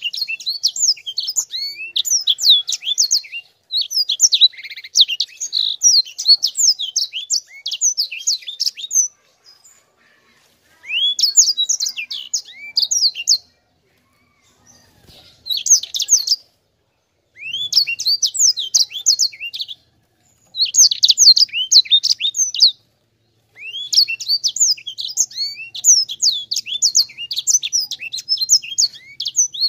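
Sanger (white-rumped seedeater) singing in full voice: long, rapid, rolling phrases of high chirps and trills. It sings in bursts of a few seconds, with short pauses between them.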